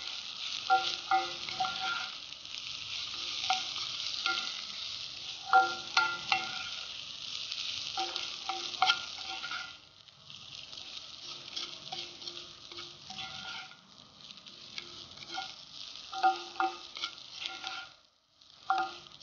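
Stuffed okra frying in groundnut oil in a cast iron pan, a steady sizzle, while a wooden spatula stirs it, knocking against the iron pan with short ringing knocks. The sizzle drops to a softer level about ten seconds in.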